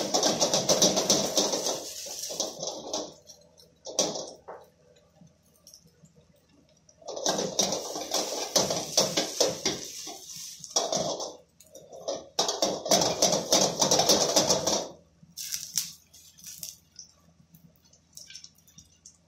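Noodle cake shallow-frying in hot oil in a wok, sizzling and crackling in three long bursts, with only faint crackles between them.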